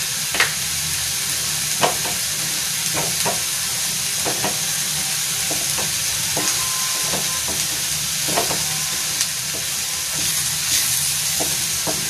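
Egg frying and sizzling in oil in a frying pan alongside diced carrots and green beans, a steady hiss, while a spatula stirs it and scrapes and taps the pan now and then with sharp clicks.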